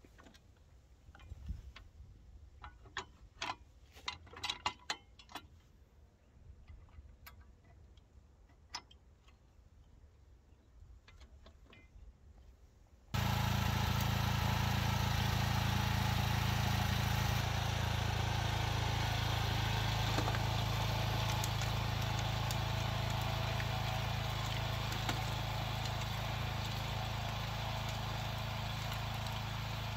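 Faint scattered clicks and ticks. Then, about thirteen seconds in, the ProGARDEN Campo U14e mini tractor's petrol engine comes in abruptly, loud, and runs steadily.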